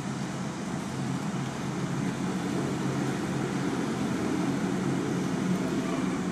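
Steady low mechanical rumble with a hum in it, growing slightly louder over the few seconds.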